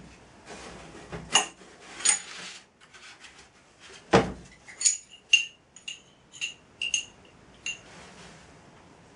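A series of about ten sharp clinks and knocks, spaced irregularly, as of small hard objects being handled or set down. Several leave a brief high ring.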